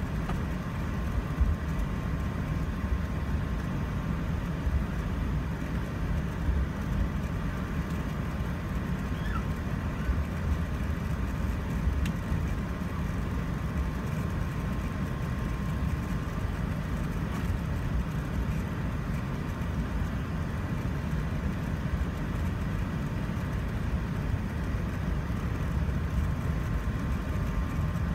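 Cabin noise of an Airbus A380 taxiing: a steady low rumble from its Rolls-Royce Trent 900 engines and the wheels rolling on the taxiway, with a faint steady whine above it.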